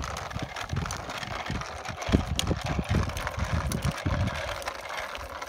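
A child's small bicycle with plastic training wheels rolling over a gravel track: a continuous crunching rattle of wheels on grit, with irregular low thumps underneath.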